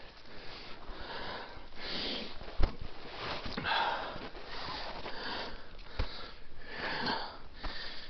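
A hiker breathing hard on a steep climb, a heavy breath roughly every second. A sharp thump about two and a half seconds in and a smaller one at six seconds.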